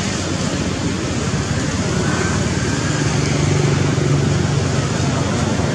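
Steady outdoor background noise with the hum of a passing motor vehicle, the hum strongest in the middle of the stretch.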